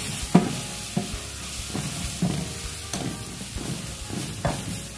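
Metal ladle stirring a sizzling curry spice base in a stainless steel pot, knocking and scraping against the pot at irregular intervals over a steady sizzle, with the loudest knock just after the start.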